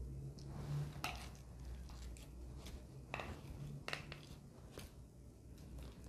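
Faint scrapes and clicks of a metal spoon scooping a sticky grated-coconut mixture from a bowl and setting it down on a paper-lined tray, a handful of separate strokes over a low steady hum.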